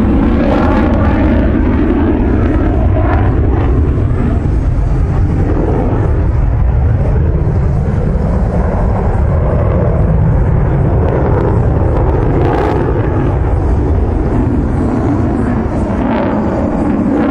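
F/A-18E Super Hornet's two General Electric F414 turbofans at high power with afterburners lit: a loud, steady jet roar with a deep rumble. In the first few seconds the sound sweeps and wavers as the fighter passes.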